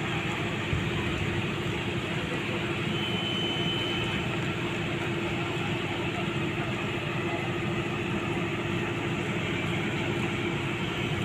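Docked passenger ferry's machinery running with a steady hum and a constant low drone.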